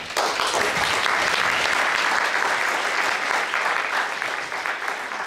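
Audience applauding, at full strength at once and thinning out near the end.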